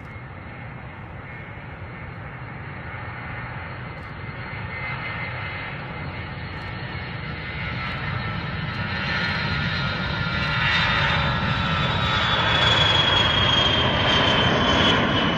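E-8C Joint STARS jet, a Boeing 707 airframe with four TF33 turbofan engines, at takeoff power. The engine roar grows steadily louder through its takeoff roll and climb-out, with a high turbine whine that drops slightly in pitch near the end as the aircraft passes.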